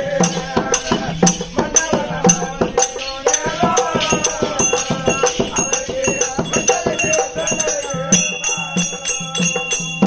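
Therukoothu folk-theatre music: quick, steady percussion with jingling ankle bells and a wavering melody line over it.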